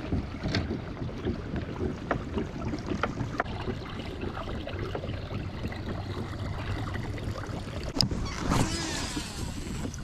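Water lapping against a kayak with wind on the microphone, with a sharp click about eight seconds in and a brief rushing sound just after.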